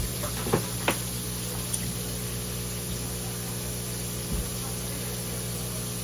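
Tap water pouring steadily onto a large flatfish on a plastic cutting board, over a steady low hum. A few short knocks and splashes sound in the first second and once more just after four seconds.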